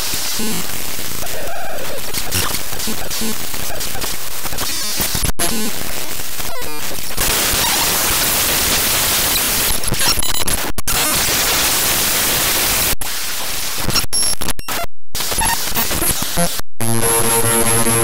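SpeedFan's program data played back as raw unsigned 8-bit audio: harsh, glitchy digital noise and static that keeps changing texture. It drops out abruptly to silence several times for split seconds, holds an even hiss for a few seconds in the middle, and turns into a buzzing pitched drone near the end.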